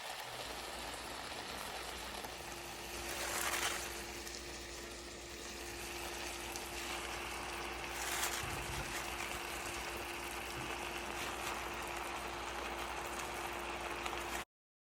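Steady hiss of food frying in oil in a pan, with a faint steady hum under it and two brief louder swells of sizzle about 3.5 and 8 seconds in; the sound cuts off abruptly just before the end.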